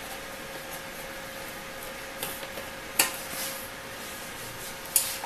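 Sharp clicks and taps of hands and a tool working on a disassembled LCD monitor's metal chassis: a soft tap a little after two seconds, then two sharp clicks about two seconds apart. A steady faint hum runs underneath.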